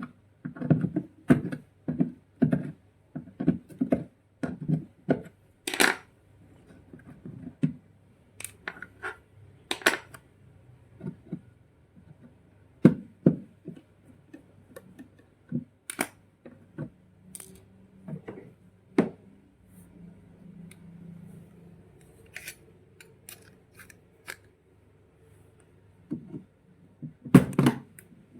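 Pliers clicking and knocking against a rusted bolt and the metal and plastic parts of a twin-tub washing machine's spin dryer. Quick irregular taps come first, then sparser sharp clicks, with a faint low hum in the middle.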